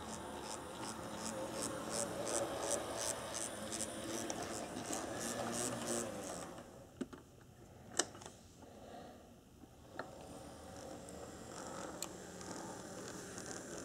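HO-scale brass 2-10-2 model steam locomotive running on track: a motor-and-gear whir with a rapid, even clicking. The noise falls away about halfway through, leaving only a few separate sharp clicks.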